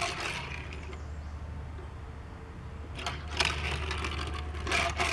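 Die-cast Matchbox toy fire truck pushed by hand and rolling across a wooden tabletop, faint, with a couple of short scraping knocks about three seconds in and again near the end.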